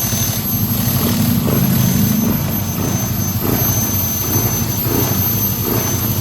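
Yamaha NMAX scooter's single-cylinder engine idling steadily, running again now that the water has been cleared from its fuel tank.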